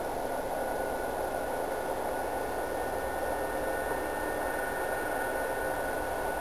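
Dv12 diesel locomotive with its SACM MGO V16 engine, heard from far off as it approaches: a steady drone with a thin whine over it and a hiss.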